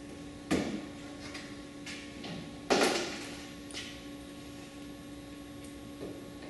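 Scattered metal clicks and knocks of hardware and a cordless drill being handled on a snowmobile rack mount: two sharper knocks about half a second and nearly three seconds in, lighter taps between, over a faint steady hum.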